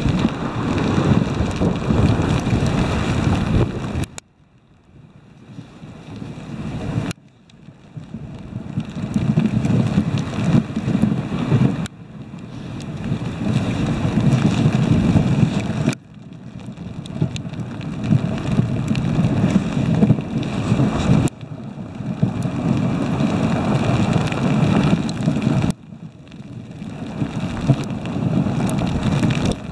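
Steady rushing noise of a dog sled gliding over snow: wind buffeting the microphone over the hiss of the runners. It cuts off abruptly and starts again several times.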